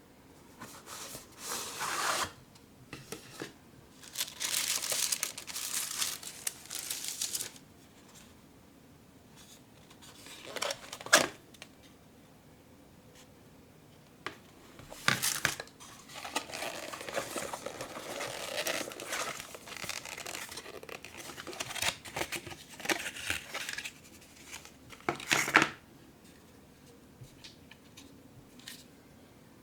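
Paper or plastic packaging being torn and crinkled in several uneven bursts, with a few sharp clicks or snaps between them.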